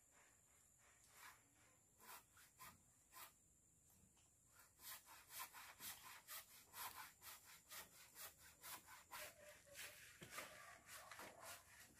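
Faint hand saw cutting timber: a few scattered strokes, then from about five seconds in a steady back-and-forth rhythm of about three strokes a second.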